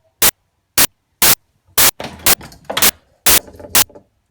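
Loud, sharp clicks repeating about twice a second in an even rhythm, with faint low murmur between them.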